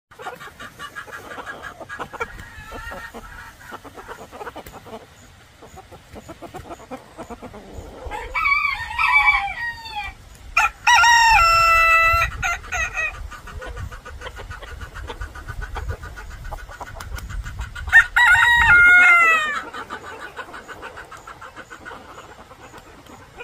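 Rooster crowing: one long crow starting about eight seconds in, and another ending with a falling note near the end, over softer clucking of chickens.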